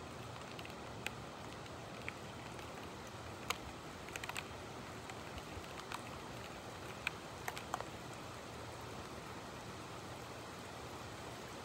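Steady rain hiss with scattered sharp drip ticks of raindrops striking a hard surface, most of them bunched in the middle.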